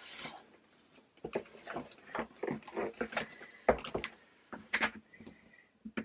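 Light, irregular rustling and clicking of small plastic bags of diamond-painting drills being pushed into a tightly packed storage box.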